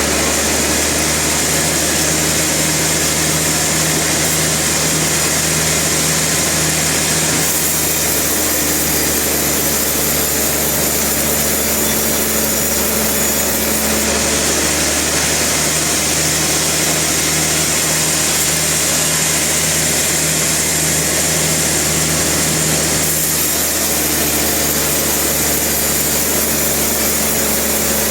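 Sawmill machinery running steadily: a loud mechanical drone with a steady hum and a bright hiss, shifting a little in tone a few times.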